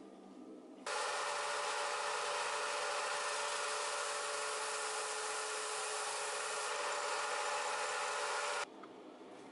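Combination belt and disc sander running, its sanding disc grinding an old wooden chair part: a steady hiss of abrasion over a constant motor hum. It cuts in abruptly about a second in and stops abruptly shortly before the end.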